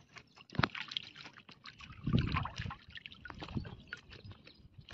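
Shallow water sloshing and splashing irregularly as a fish is picked out of a net lying in it, with small drips, a sharp tap about half a second in and a louder slosh about two seconds in.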